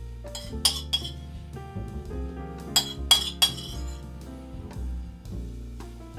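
Metal spoon clinking against a ceramic bowl while scooping: two clinks about a second in, then three quick ones around three seconds in, over background music.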